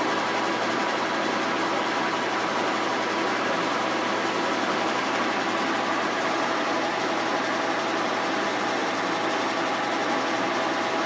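Kearney & Trecker 2H milling machine running steadily through a thread-milling cut, a constant mechanical hum with a few steady whining tones.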